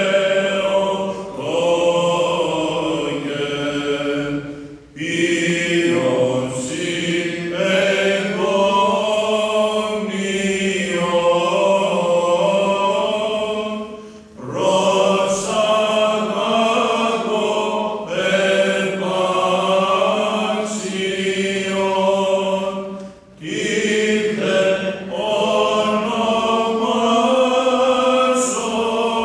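Male Byzantine chanters singing a slow, melismatic Greek Orthodox hymn, with a steady low drone held under the moving melody. The phrases break for three short pauses, about 5, 14 and 23 seconds in.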